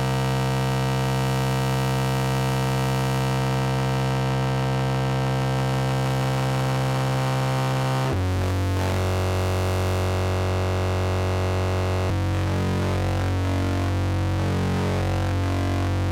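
Experimental electronic music: a dense, sustained synthesizer drone of many held tones over a heavy bass. About halfway through the chord and bass shift down, and near the three-quarter mark the texture turns rougher and more broken up.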